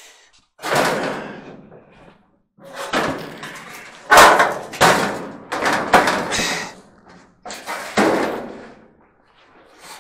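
White Westinghouse clothes dryer drum being worked back into its sheet-metal cabinet: a run of metal scrapes, bumps and knocks, the sharpest about four seconds in.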